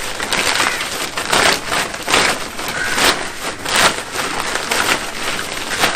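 Empty plastic feed sack being rolled up by hand, crinkling and rustling with irregular crackles.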